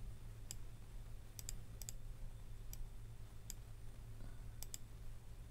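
Computer mouse buttons clicking, about nine sharp clicks at uneven intervals, some in quick pairs like double-clicks, over a faint steady low hum.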